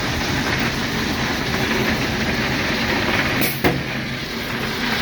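Ballast train working: a diesel locomotive running with the cars rolling on the rails, a steady rumble and hum. One sharp click comes about three and a half seconds in.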